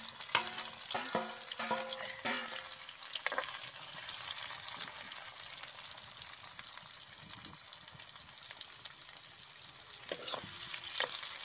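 Sliced onions and bay leaves sizzling steadily in hot oil in a cast-iron kadai. Several short knocks come in the first couple of seconds, and a steel spatula scrapes and knocks against the pan about ten seconds in as the onions are stirred.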